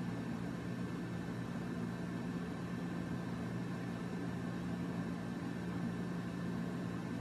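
Steady low background hum with a faint hiss, unchanging throughout: electrical or appliance room noise.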